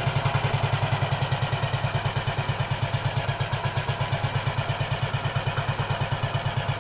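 1961 Heinkel Tourist 103A2 scooter's single-cylinder four-stroke engine idling steadily on choke, with an even, rapid beat. It is running on a newly fitted Keihin carburettor without an air filter; the owner thinks the choke is a bit too rich and the mixture screw may need adjusting.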